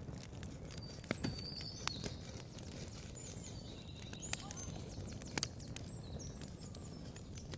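Scattered light clicks and taps from handling grilled salmon on a wire grill over charcoal, with a metal spoon against the grate, and short high bird chirps in the background.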